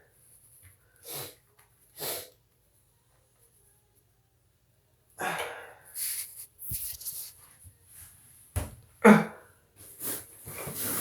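A person sneezing, with short sharp breaths around the sneezes. Two brief bursts come early, then a pause of about three seconds, then a run of outbursts. The loudest sneeze comes about nine seconds in.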